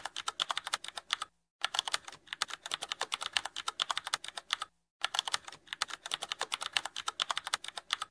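Computer keyboard typing sound effect: rapid, steady key clicks with two brief pauses, about a second and a half in and about five seconds in.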